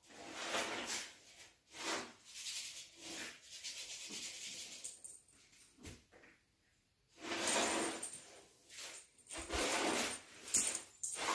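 Irregular bursts of rustling and rubbing as kittens play with a feather wand toy on a cloth bedsheet, with a short lull about halfway through.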